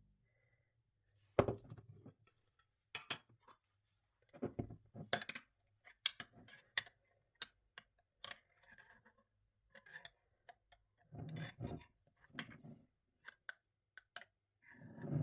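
Kitchen handling sounds: irregular clicks and knocks of utensils and glassware, with a few short scraping or rubbing sounds.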